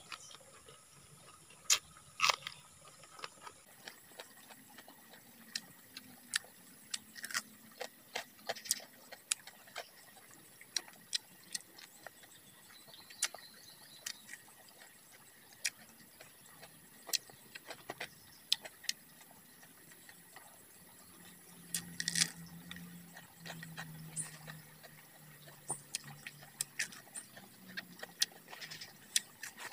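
Close-up crunching and chewing of crispy fried food, heard as irregular sharp crunches scattered throughout.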